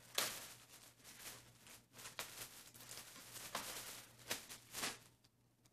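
Clear plastic garment bag rustling and crinkling in irregular bursts as a folded piece of clothing is pulled out of it; the rustling stops near the end.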